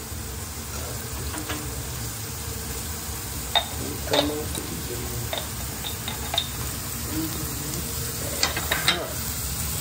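Onions frying in hot oil with chillies and capsicum in a pan, a steady sizzle while being stirred. The stirring spoon knocks against the pan several times, sharpest about three and a half seconds in, with a quick cluster of knocks near the end.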